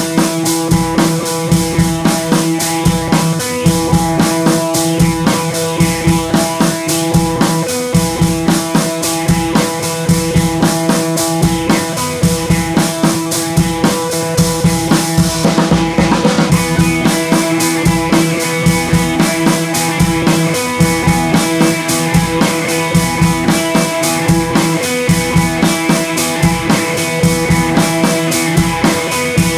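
Instrumental music with a steady drum-kit beat, bass drum and snare, and guitar.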